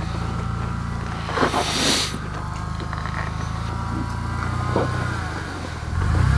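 Off-road vehicle engine running at low revs, with a brief rushing noise about two seconds in and a short knock near five seconds; the engine gets louder near the end as it revs up.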